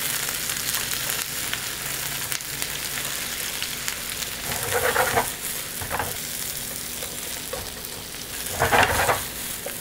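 Cabbage, mushrooms and peppers sizzling in hot oil in a frying pan while being stir-fried with wooden chopsticks: a steady sizzle with small clicks and scrapes of the chopsticks against the pan, and two brief louder bursts of stirring, about halfway and near the end.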